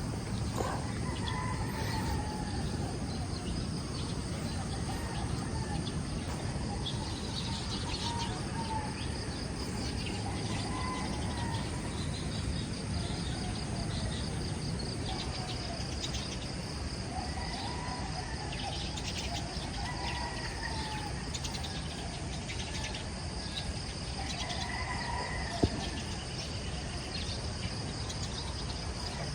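Birds calling in short repeated phrases while insects trill, over a steady low background rumble. A single sharp click sounds near the end.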